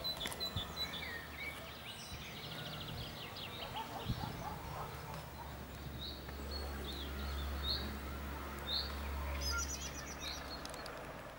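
Small songbirds chirping and trilling in short scattered phrases over outdoor background noise, with a low steady rumble from about the middle until near the end.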